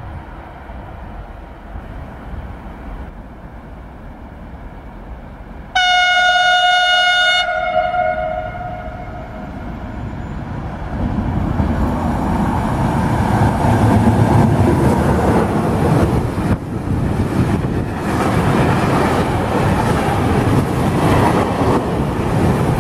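A freight train sounds one horn blast of about a second and a half, then runs through the station at speed. The rumble and rattle of its wagons on the rails builds up and stays loud as they pass close by.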